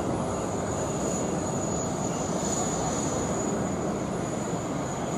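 Airbus A321 airliner taxiing, its jet engines at idle giving a steady rumble with a thin high whine above it.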